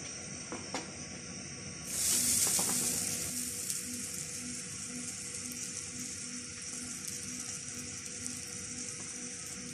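Butter sizzling as it melts in a hot nonstick frying pan. The sizzle comes in suddenly about two seconds in, loudest at first, then settles to a steady sizzle.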